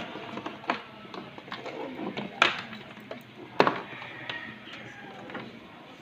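Sharp clicks and knocks of computer hardware being handled, two of them loud, as keyboard and mouse cables are plugged into the back of a desktop system unit.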